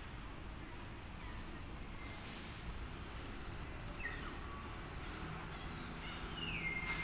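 Forest ambience: a bird gives falling whistled calls about every two to three seconds, some ending on a short held note, over a steady low rumble.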